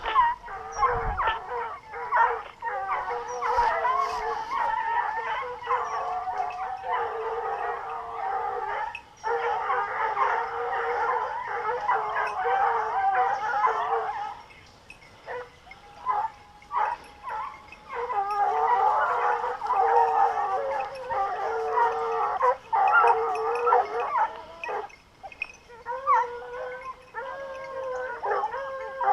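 A pack of scent hounds baying together in full cry, many voices overlapping, as they run on a boar hunt. The chorus thins to a few scattered yelps about halfway through, then the whole pack takes up the cry again.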